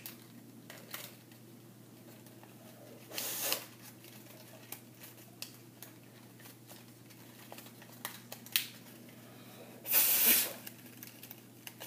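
Paper rustling and crinkling in the hands, with two short bursts, one about three seconds in and a louder one near the end, and light handling clicks between.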